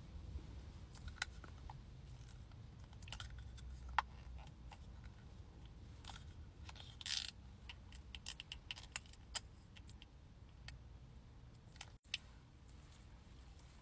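Faint clicks and taps of fingernails and a small plastic makeup bottle as liquid foundation is squeezed out onto a palm, with a brief louder rustle about seven seconds in. Underneath is a low steady rumble of the car's interior.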